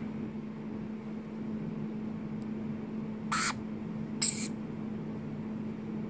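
Two short, harsh squawks from a young varied lorikeet, a little under a second apart, the second higher-pitched and louder, over a steady low hum.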